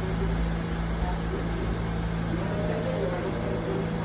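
R68 subway train standing at the station platform, giving off a steady low hum with a rumble beneath.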